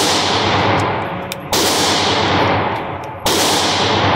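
Two handgun shots about a second and three quarters apart, each followed by a long echoing decay.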